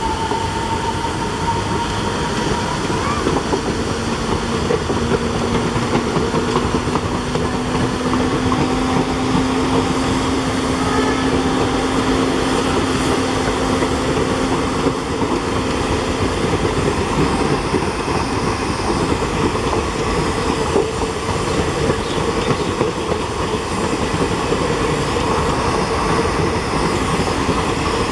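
An express train's passenger coaches running past at speed, a loud, steady noise of steel wheels on the rails.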